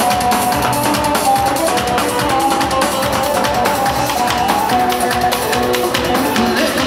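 Loud amplified dance music for a halay line dance, with a steady beat and a melody line, played through the hall's loudspeakers.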